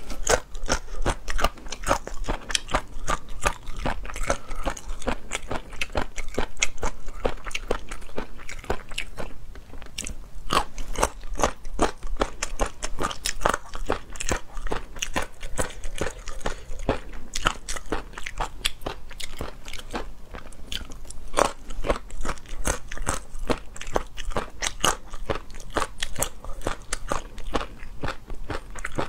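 Close-up chewing of crunchy chicken cartilage: a rapid, irregular run of sharp crunches with biting and mastication.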